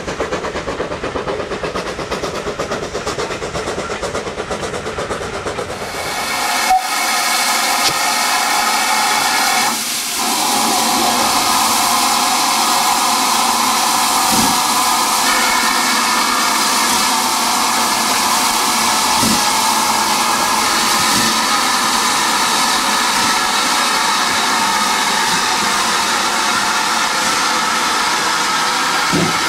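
For the first six seconds or so, a distant steam-hauled train runs with a steady rumble. Then GWR Manor class locomotive 7822 Foxcote Manor blows off steam with a loud, steady hiss that has a ringing tone in it.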